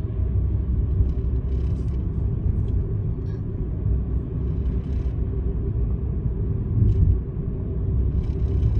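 Steady low rumble of a car's road and engine noise heard from inside the cabin while driving at moderate speed.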